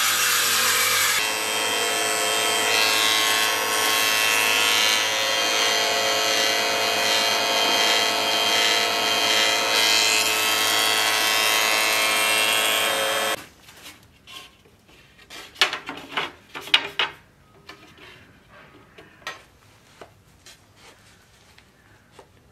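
Table saw running and ripping a thin wooden strip, fed through the blade by a power feeder: a steady machine whine under the cutting noise, ending abruptly about 13 seconds in. After that come only scattered light taps and knocks from handling.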